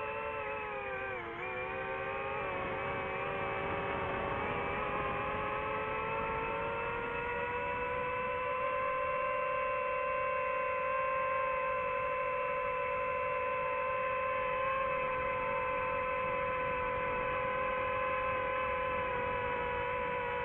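DJI FPV drone's motors and propellers whining in flight, heard from on board. The pitch dips briefly about a second in, then rises and holds steady.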